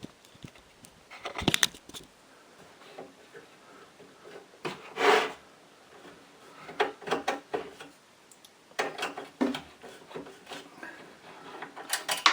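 Scattered clicks, knocks and short scrapes of a screwdriver taking the screws out of a cooker door's metal top panel, with the parts being handled. The loudest is a half-second scrape about five seconds in.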